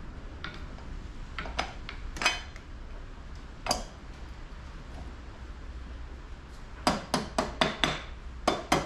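Metal clinks and knocks of a BSA Bantam brake backing plate being worked into a motorcycle's front wheel hub between the forks. A few scattered knocks, then a quick run of about six sharp taps near the end.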